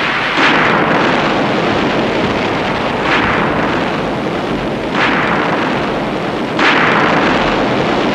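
Staged explosion effects in a TV comedy soundtrack: four sudden blasts, a second and a half to three seconds apart, each fading slowly into a continuous wash of noise.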